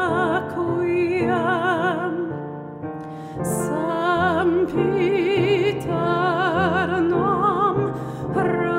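A woman singing a slow song with a wide vibrato, accompanied by a stage piano. Her voice drops out briefly about two and a half seconds in, then resumes.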